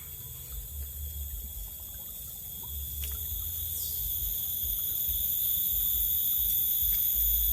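Forest ambience: a steady, high-pitched insect chorus, with a low rumble underneath and a short falling whistle about four seconds in.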